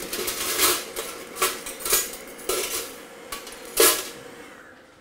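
Metal kitchen utensils and cookware clinking and clattering as a spoon is picked out and handled: about six sharp knocks, the loudest near the end.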